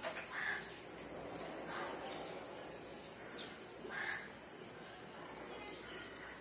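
Faint steady background ambience with a few brief, faint distant sounds, about half a second and about four seconds in.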